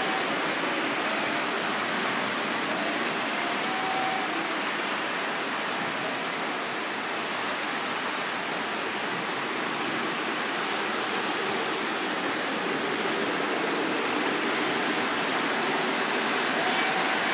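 Lionel model trains running around the layout track: a steady rolling rush of wheels and motors.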